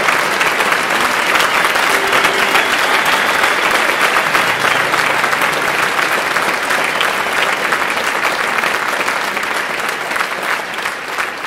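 A large audience applauding steadily, easing off slightly near the end.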